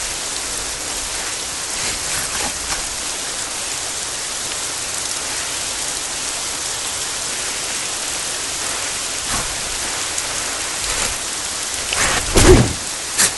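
Steady heavy rain falling, with a loud, sudden rush of noise about a second before the end.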